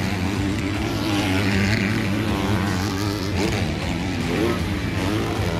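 Motocross bikes racing on a dirt track, their engines revving up and down as they ride past.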